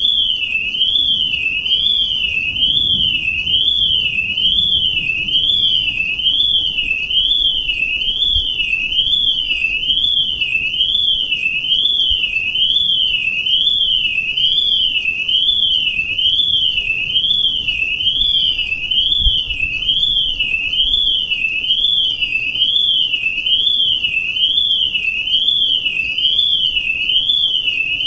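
High-pitched electronic alarm warbling without a break, its tone sweeping up and down about once a second.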